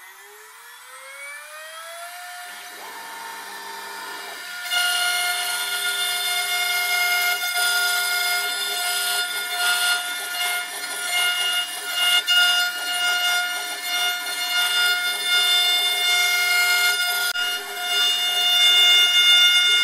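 CNC router spindle motor spinning up with a rising whine that levels off about two seconds in. About five seconds in the bit starts cutting into the wooden board: a loud steady high whine over the noise of wood being milled.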